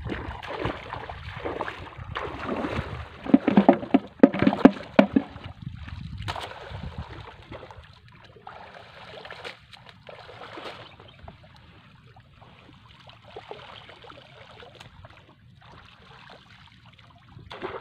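Water splashing and sloshing in irregular bursts as people wade waist-deep and drag a net through it. The splashing is loudest and sharpest about three to five seconds in, then eases to softer intermittent sloshing.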